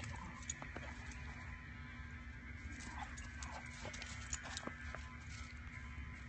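A dog and a puppy playing rough in light snow: scuffling paws and scattered faint clicks over a low steady rumble.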